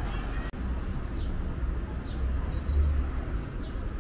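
City street ambience: a steady low rumble of road traffic that swells a little near the end, with a few faint short high chirps.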